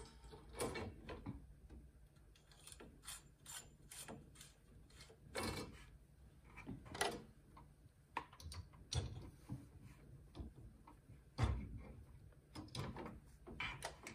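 Cast-on comb and weights being hung on the first knitted row of a double-bed knitting machine: irregular clicks, clinks and knocks, with a louder knock about eleven seconds in.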